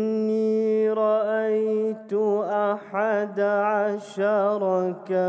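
A man recites the Quran in a melodic tajweed style. He holds one long steady note, and about two seconds in it breaks into wavering, ornamented phrases with brief pauses for breath.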